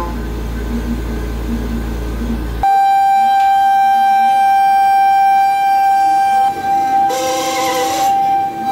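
Pocket NC desktop five-axis CNC mill cutting a metal part: a low hum with shifting tones while thread milling, then, after an abrupt change, a steady high-pitched cutter whine while roughing. A loud hiss lasting about a second comes near the end.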